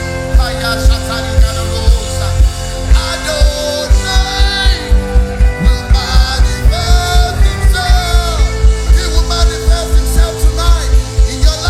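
Church worship music: a band and singers performing, with sustained keyboard-like tones and a fast, steady, heavy drum beat.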